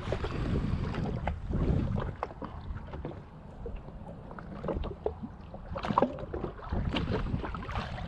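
Wind buffeting the microphone with small splashes and knocks of water against a drifting jet ski, heavier in the first couple of seconds, with scattered light ticks throughout.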